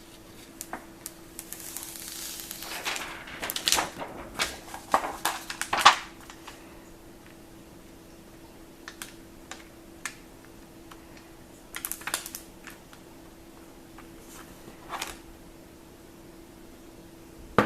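Thin plastic screen-protector film being handled and laid onto an iPad: crinkling and rustling for a few seconds, with sharp taps and clicks of fingers and film against the tablet, then only scattered single clicks. A faint steady hum runs underneath.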